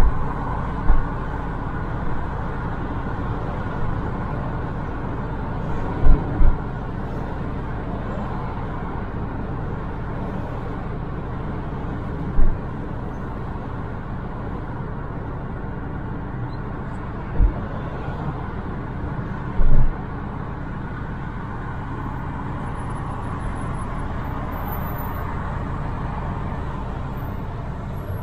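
Steady road and tyre noise with engine hum inside a moving car's cabin, broken by half a dozen brief low thumps.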